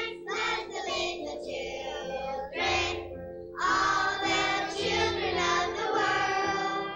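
Singing in sung phrases over a sustained held chord; the voices grow fuller about halfway through.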